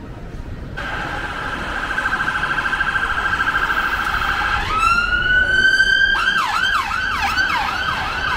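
Emergency vehicle siren passing in city traffic. It starts with a fast warbling tone, then rises into a held wail, then switches to a rapid yelp of quick sweeps, about two a second.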